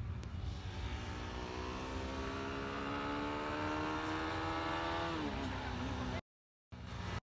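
Distant motorcycle engine coming up the road, its revs rising steadily for a few seconds and then dropping sharply about five seconds in, over a low rumble. The sound cuts out abruptly twice near the end.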